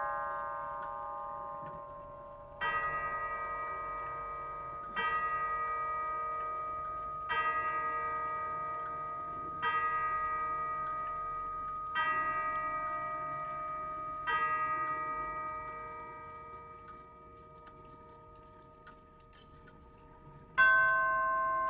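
Grandfather clock's nine brass chime tubes striking: six evenly spaced strokes about two and a half seconds apart, each a ringing chord that fades slowly, like church bells. After a longer fade, a new run of chime notes starts near the end.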